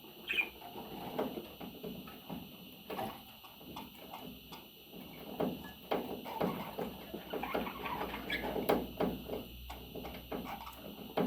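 Budgerigar chattering, a run of short, irregular chirps and clicks.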